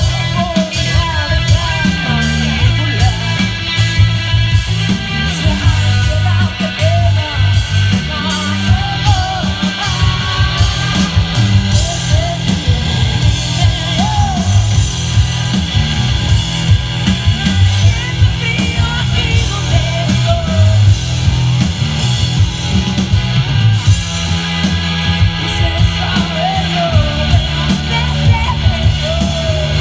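Live rock band playing: loud, driving drums and bass with electric guitars, and a singer's voice over them.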